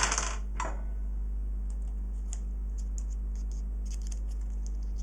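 Light clicks and small metal taps of a soldering iron and its tip being handled at a workbench while the tip is swapped for a knife tip. A short scrape opens it, with another just after half a second in, over a steady low hum.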